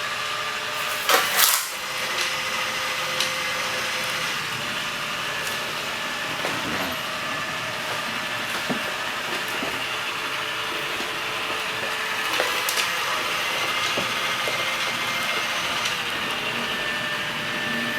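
Ainol A-S11 robot vacuum running in mop mode, its suction fan and brushes whirring steadily at reduced suction as it moves across linoleum. A few sharp knocks come about a second in.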